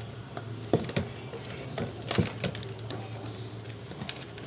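Hands working plastic scooter parts while fitting a signal-light lens: a few sharp clicks and knocks, the loudest about a second in and a little after two seconds, over a steady low hum.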